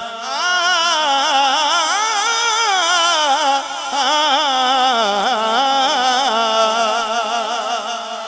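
A man singing a naat unaccompanied into a microphone: one long, ornamented held phrase whose pitch slides and wavers up and down, over a steady low drone. It fades away near the end.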